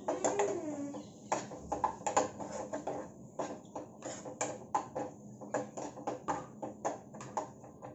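Steel spatula clinking and scraping against a non-stick frying pan while a masala is stirred, in irregular clicks and knocks, two or three a second.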